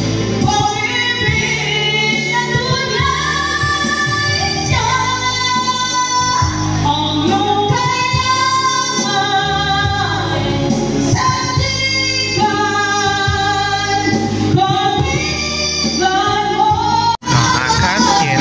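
A song with a woman singing over a band backing, playing from a karaoke jukebox. It cuts out abruptly for a moment near the end.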